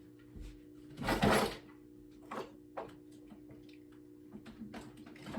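A 9-volt battery being fitted into a smoke alarm's backup battery compartment: a brief scrape about a second in, then several light plastic clicks. A faint steady hum runs underneath.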